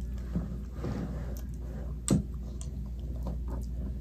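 Quiet sounds of eating at a table, small clicks and soft rustling, with one sharp knock about two seconds in, over a steady low hum.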